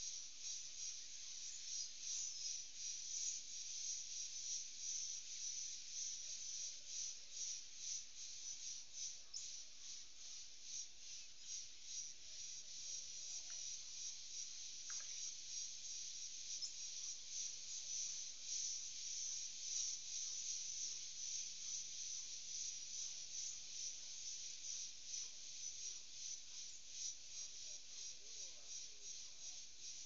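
Dusk chorus of rainforest insects: a dense, steady, high-pitched shimmer of fast trills and buzzes, with a few faint short calls from other animals now and then.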